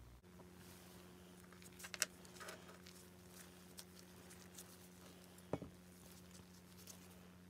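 Light clicks and taps of gloved hands handling a small brass fitting against a painted model-locomotive smoke box. Two sharper clicks come about two seconds in and about five and a half seconds in, over a faint steady hum.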